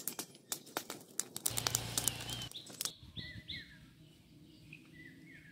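A straw fire with a bamboo tube in it crackling, with many sharp pops. About three seconds in this gives way to a quieter background of small birds giving short chirps.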